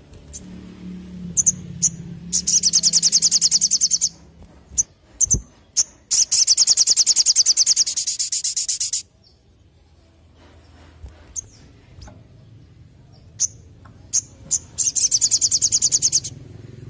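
Sunbird (sogon) singing: single sharp chirps and three very fast, high rattling trills, the longest about three seconds, the kind of song that bird keepers call 'ngleper'.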